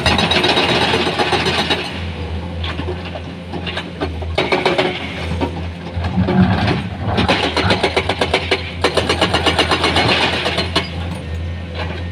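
Komatsu excavator's diesel engine running steadily while digging, with a constant low hum under a dense run of rattles and clanks.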